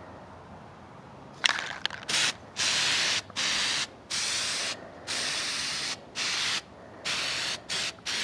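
Aerosol spray paint can sprayed in a series of short bursts, about half a second to a second each with brief gaps between. A few sharp clicks come about a second and a half in, just before the spraying starts.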